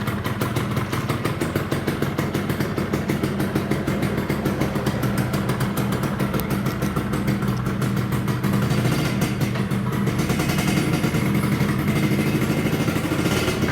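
Two-stroke motorcycle engine running steadily, a little louder from about two-thirds of the way through.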